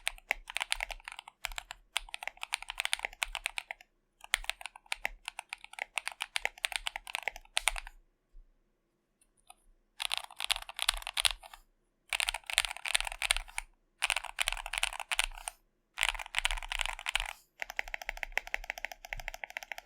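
Fast typing on an Akko ACR67 custom mechanical keyboard: stacked acrylic case, FR4 plate, foam-dampened, with lubed Akko Vintage White switches. The keystrokes come in quick runs of a second or two with short breaks, and there is a pause of about two seconds in the middle broken by a couple of single keystrokes.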